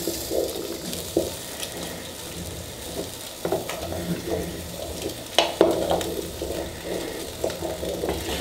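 Wooden spoon stirring beans in freshly added boiling water inside an aluminium pressure cooker, with a few sharp knocks of the spoon against the pot's side.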